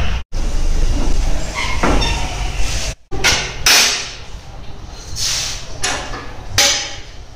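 Several sharp metallic clanks and knocks in the second half as a wheel-alignment target clamp is handled and fitted on a car wheel. A steady low workshop noise fills the first few seconds.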